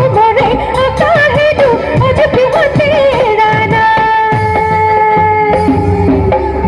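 A woman singing an Assamese song with accompaniment, her melody wavering and ornamented at first, then settling into a long held note about halfway through.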